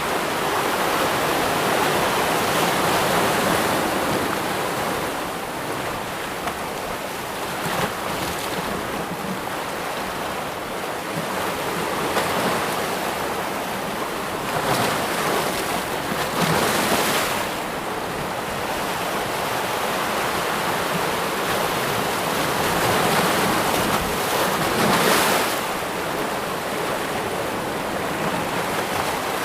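Waterfall and running water rushing steadily, swelling and easing in slow surges.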